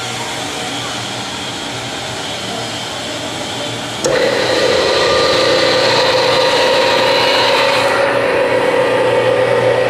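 Electric motor driving the hydraulic pump of a homemade hydraulic press, switched on at its push button about four seconds in. A click, then a sudden louder steady whine that keeps running, over a steady mechanical hum that was already there before.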